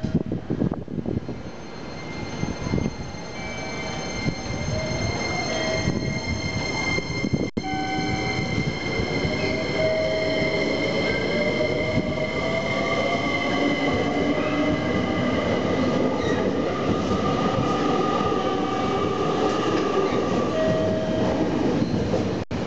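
JR Kyushu 885-series 'Sonic' electric express pulling out of the station. Its motor whine rises slowly in pitch as it accelerates, over the wheels' rumble and clatter on the rails, and grows louder as the cars pass close by.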